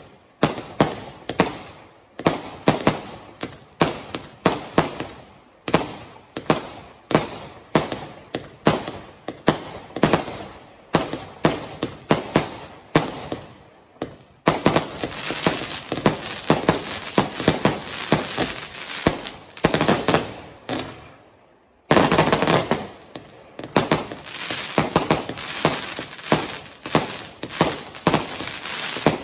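Black Panther Fireworks 'Boss Nasty' firework cake firing shot after shot, about two a second, each bang trailed by crackle. Over the middle stretch the shots come thick and fast with hardly a gap, and they stop briefly just before a loud new volley about two-thirds of the way in.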